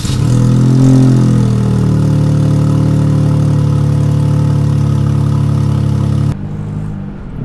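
Dodge Charger V6 with its stock muffler, heard at the exhaust tips: the engine flares up briefly, then settles into a steady idle. About six seconds in, this gives way to a quieter engine drone.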